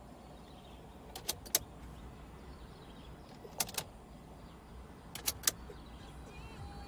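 Light sharp clicks in three quick pairs, a couple of seconds apart, from a car radio wiring harness and FM antenna booster being handled, over a low steady rumble.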